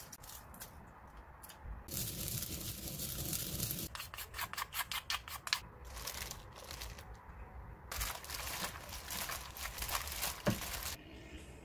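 Kitchen scissors snipping green chili peppers over a stainless steel bowl, then a plastic-gloved hand rubbing and crinkling as it mixes seasoned vegetables in the bowl. There is one sharp click about ten and a half seconds in.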